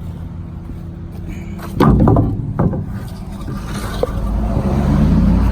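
Wooden wheel blocks clattering as they are slid and dropped into place, several loud knocks about two seconds in, over a truck engine idling steadily. Near the end the engine note rises.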